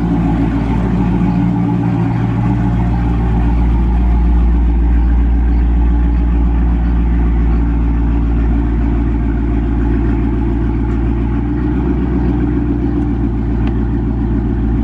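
Dodge Charger 392's 6.4-litre HEMI V8 running steadily at low revs while the car is driven out slowly.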